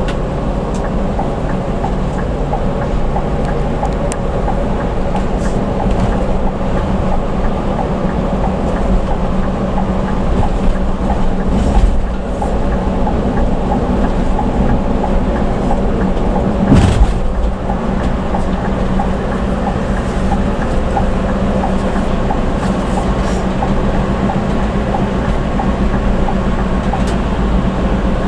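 Coach bus diesel engine running steadily at highway speed, heard from inside the cabin as a low drone over tyre and road rumble. A single thump comes about seventeen seconds in.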